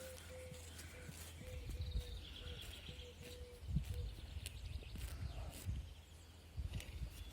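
Horse shifting about in the stable, with a few dull hoof thuds, the loudest about four seconds in. A bird trills briefly before it.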